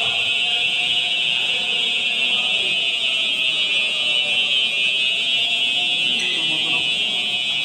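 Fire alarm sounder on a Simplex fire alarm system going off during a drill: a loud, high, steady alarm that runs without pauses.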